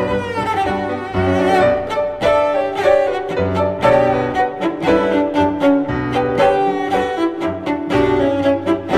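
Instrumental music on bowed strings, cello and violin, playing many short, sharply attacked notes over a low bass line.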